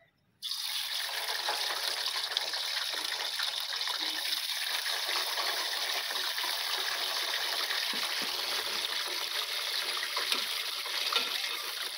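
Pieces of boneless meat dropped into hot ghee in a steel pot, sizzling as they start to fry; the hiss comes on suddenly about half a second in and then holds steady.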